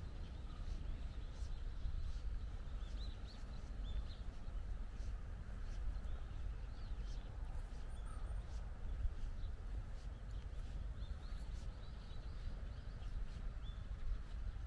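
Outdoor walking ambience: small birds chirping now and then over a low rumble of wind on the microphone, with irregular light ticks like footsteps on a path.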